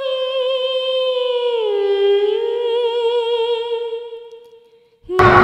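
Background film score: a wordless voice holds one long note with vibrato, slides down to a lower note about two seconds in, and fades away. Loud street noise cuts in suddenly at the very end.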